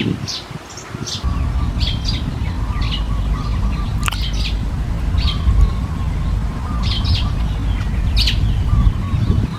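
Birds chirping: many short, sharp, high calls in quick succession, over a steady low rumble that starts about a second in. A single sharp click about four seconds in.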